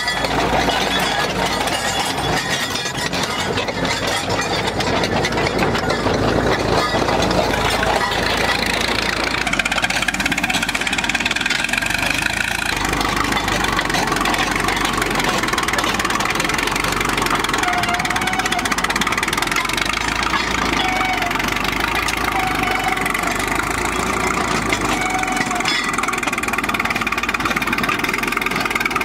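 Old crawler bulldozer's engine running steadily as the machine drives along on its tracks.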